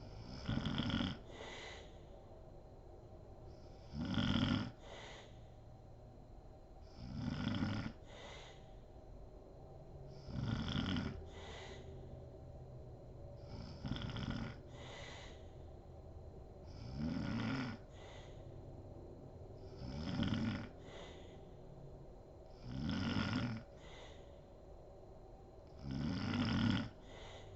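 A woman snoring in her sleep, a loud snore about every three seconds, nine in all. Each snore is followed closely by a shorter, quieter second sound.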